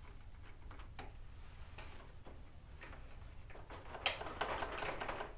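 Scattered small clicks and taps of hand tools and fasteners on a motorcycle's fairing, then about a second of denser rattling and scraping near the end.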